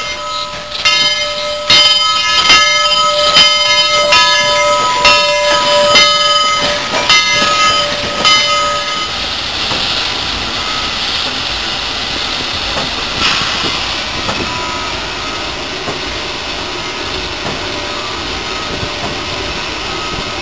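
Southern Railway 4501 steam locomotive's bell ringing, struck about once a second. About nine seconds in the bell stops, giving way to a steady hiss of steam and running noise heard from inside the locomotive's cab.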